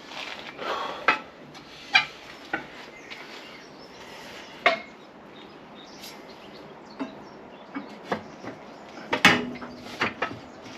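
Steel tyre tools clinking and knocking against a wheel rim and tyre changer, with scraping of rubber on metal, as a skid steer tyre bead is levered onto the rim by hand. Irregular sharp knocks, a dozen or so, with quieter rubbing between.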